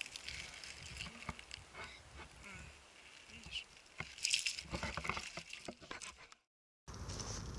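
Irregular clicks and rustling of a person moving and handling a spinning rod on a pebbly riverbank, busiest shortly after the middle. Near the end the sound cuts out for about half a second, then a steady high hiss comes in.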